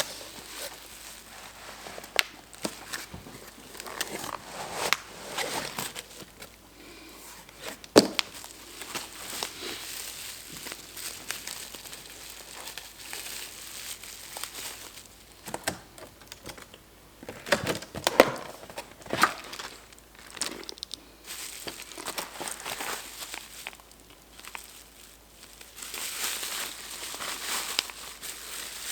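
Packaging crinkling and rustling as a microphone is unpacked from its box, with scattered clicks and knocks of handling, the loudest about eight seconds in and a cluster around eighteen seconds in.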